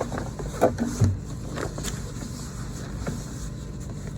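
Stiff Dacron sailcloth rustling, with a few light knocks, as it is turned under the sewing machine's presser foot, over a steady low hum.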